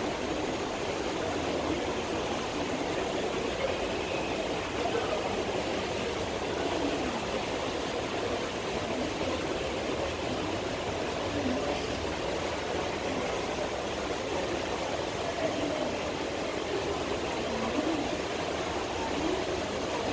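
Steady ambient hubbub of a large, busy airport terminal: distant voices blurred into a continuous wash of noise.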